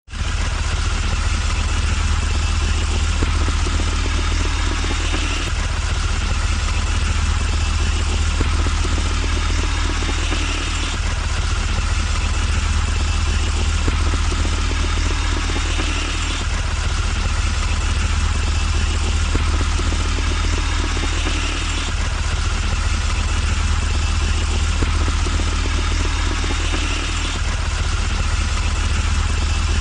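Steady engine rumble of a heavy vehicle, a looped sound that repeats about every five and a half seconds.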